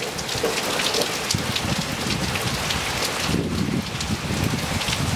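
Hard rain falling steadily onto a wet paved patio, a dense, even hiss dotted with many sharp close drop hits.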